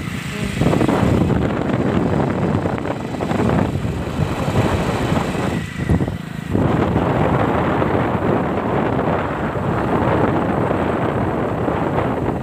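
Motorbike riding along a road: wind rushing over the microphone over the bike's engine and tyre noise, loud and steady, with a brief lull about six seconds in.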